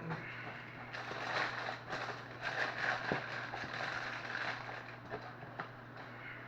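Mouth noises of someone chewing crunchy cereal: an uneven run of small crunches and clicks, loudest in the middle, over a steady low electrical hum.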